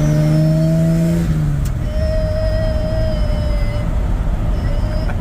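A 1967 Chevrolet C10 pickup's engine pulling under acceleration, heard from inside the cab. Its note fades out about a second and a half in, with a single click, leaving a steady low driving rumble with a faint whine.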